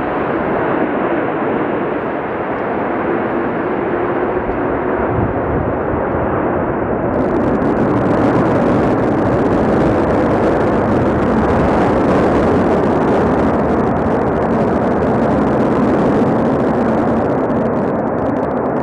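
Jet engines of a McDonnell Douglas MD-11 freighter running at high power as it rolls down the runway: a loud, steady rushing noise that grows louder and brighter about seven seconds in.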